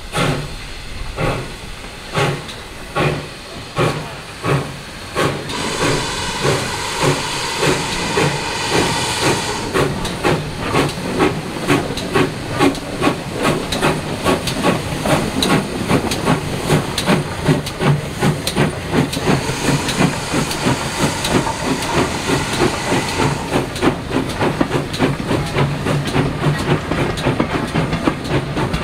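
Steam locomotive pulling away under load, its exhaust beats quickening from about one a second to two or three a second. A steady hiss of escaping steam runs over the beats for much of the middle stretch.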